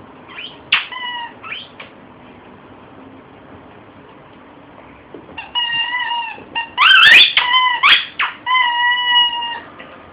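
Squeaky toy squeaking as a shih-tzu bites and chews it. A short cluster of squeaks comes about half a second in, then a longer run of held and rising squeaks starts about five seconds in, loudest around the middle of that run.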